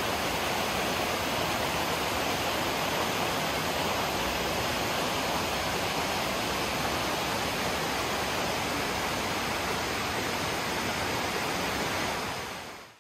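Rushing water, a steady even roar like a waterfall or fast stream, that fades out near the end.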